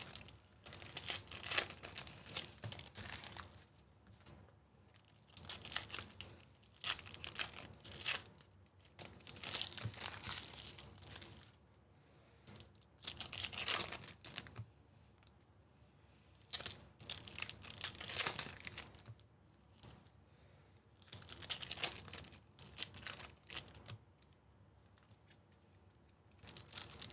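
Foil baseball card pack wrappers being torn open and crinkled by hand, in several separate bursts of a second or few each with quiet gaps between.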